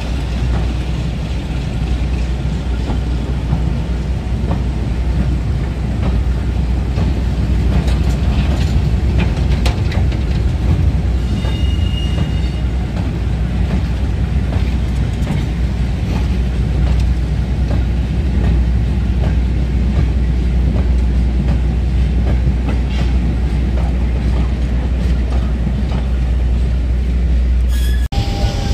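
Heritage diesel train running: a steady deep engine rumble mixed with wheel-and-rail noise and scattered clicks.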